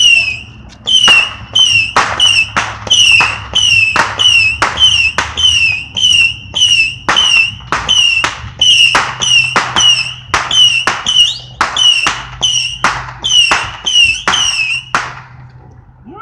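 Phantom Saturn missile battery firing its shots one after another, about two a second, each a sharp pop with a short high whistle that dips slightly in pitch. The volley stops about a second before the end.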